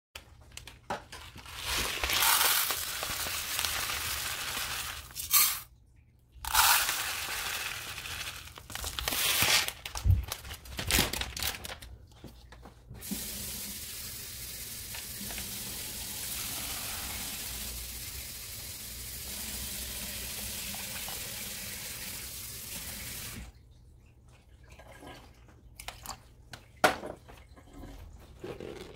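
Water running steadily for about ten seconds as a saucepan of dry jasmine rice is filled for cooking. Before it come several stop-start bursts of rustling noise, and after it a few light clicks with one louder tap near the end.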